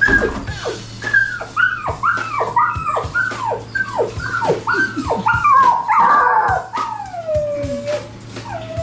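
A dog's high yips and whimpers: a run of short cries that drop in pitch, about two a second, then one longer whine sliding down near the end.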